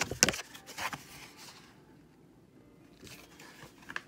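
Handling noise from items being moved about on a table: a sharp click at the start, then lighter clicks, scraping and rustling, with a few more small clicks near the end.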